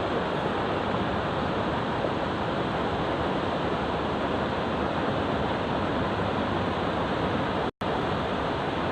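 Steady rushing of flowing river water, with a split-second cut to silence near the end.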